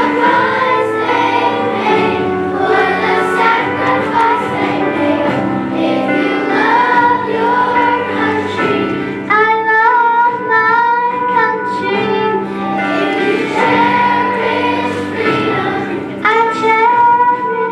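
Children's choir singing a patriotic song with instrumental accompaniment.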